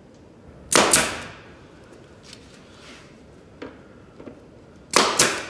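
Pneumatic brad nailer driving brad nails into the pine boards of a beehive frame jig. It fires twice, about four seconds apart, each shot a sharp double crack with a short hiss trailing off.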